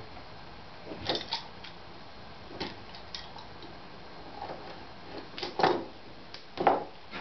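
Handling noises at a workbench: scattered clicks, taps and short scrapes from small parts and tape being handled. The two loudest come near the end.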